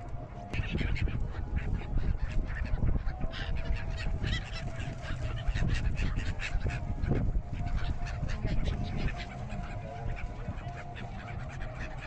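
A large flock of gulls calling all around, many short calls overlapping continually, over a steady low rumble.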